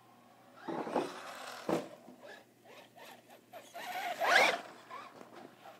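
Brushless motor of a Traxxas Slash 4x4 radio-controlled truck whining in short bursts of throttle, with a sharp knock a little under two seconds in. The loudest burst comes about four seconds in, with a rising whine.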